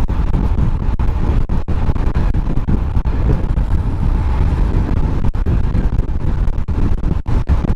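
Heavy wind rushing over a helmet-mounted GoPro's microphone as a road bike rides at high speed, near 30 mph. The noise is dense and low, with brief buffeting dropouts.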